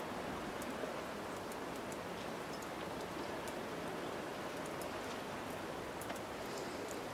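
Steady outdoor noise wash with faint scattered high ticks, and no engine tone to be picked out.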